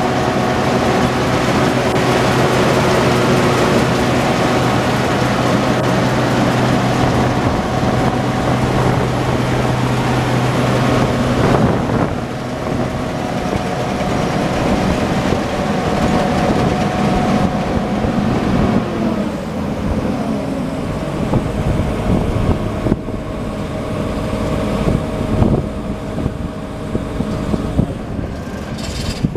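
1997 Case IH 2188 combine's diesel engine running steadily, close by. About two-thirds of the way through its pitch slides lower as it slows, then it runs on at the lower speed.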